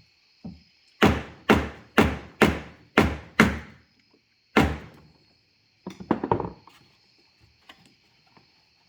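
Hammer blows on metal while tapping the fuel pump's retaining lock ring into place: six sharp, evenly spaced strikes about half a second apart, a single harder one a second later, then a few lighter taps.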